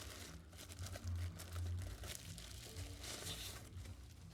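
Packaging crinkling and rustling in short, irregular bursts as it is handled and opened by hand.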